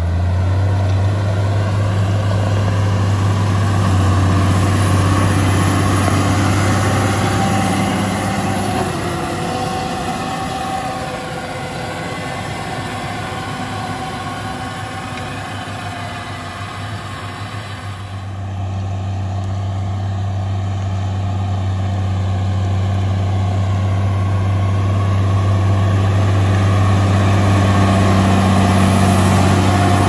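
Case IH Magnum 7240 Pro tractor's six-cylinder diesel engine running steadily under load, pulling a power-harrow seed drill. It grows fainter in the middle as the tractor moves away, then louder over the last dozen seconds as it comes close.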